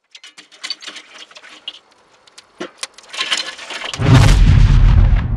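Burning charcoal in a chimney starter and barbecue, crackling and popping with sparks. About four seconds in, a loud low rushing roar of flame sets in.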